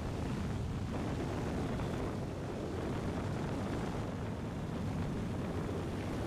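Zenith 750 Cruzer light aircraft's Viking 130 engine running steadily with rushing airflow, heard from on board as a constant low drone.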